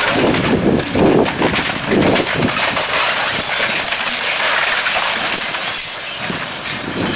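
Komatsu tracked excavator tearing down a wooden building. Timber cracks and splinters and debris crashes, over the machine's engine running.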